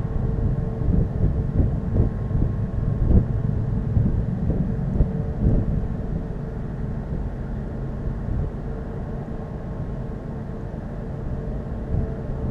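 Wind buffeting the microphone in uneven gusts, strongest in the first half, over a faint steady drone.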